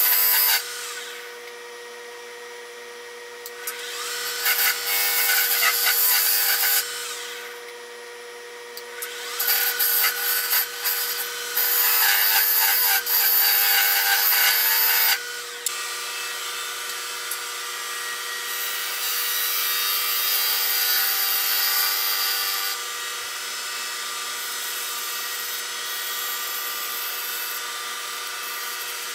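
Wood lathe running with a steady motor whine while a turning tool cuts a small spinning wooden spindle, making loud hissing cuts in several bursts of a few seconds each. About halfway through the cutting stops and a softer, steadier rubbing on the spinning wood takes over.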